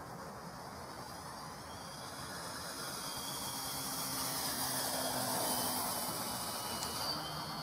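Electric brushless motor and propeller of a 1.4 m Phoenix Tiger Moth RC biplane, a steady whine in a low pass. It grows louder to a peak about five seconds in, and its pitch shifts as the model goes by.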